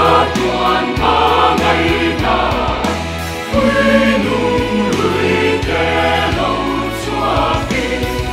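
Mixed choir of women's and men's voices singing a gospel song in harmony, over a low bass accompaniment whose notes change every second or so.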